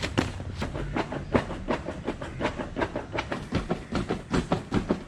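Built-in foot pump of an inflatable air mattress being pumped by foot: quick, rhythmic puffs of air and clacks, about four or five strokes a second, as the mattress fills.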